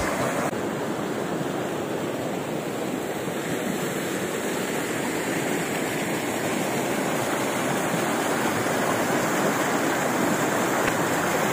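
Shallow river rapid rushing over rocks: a steady, even rush of white water.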